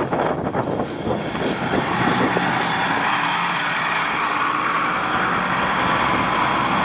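Army trucks driving past on a dirt road: engine and road noise that builds over the first couple of seconds and then holds steady and loud.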